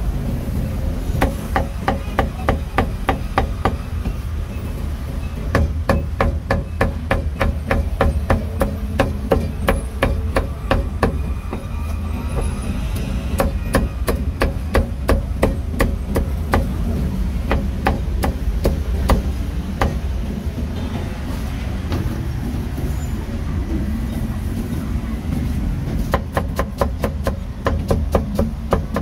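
Cleaver chopping roast meat on a chopping block: quick runs of sharp, even strikes, several a second, that stop and start again a few times.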